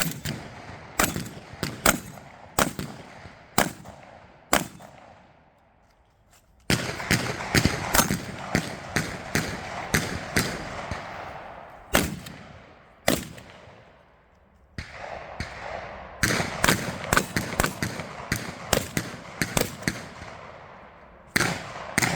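Shotgun shots at irregular intervals, some in quick strings of several shots, each with a ringing echo. The shots come from practical-shooting competitors firing on the range.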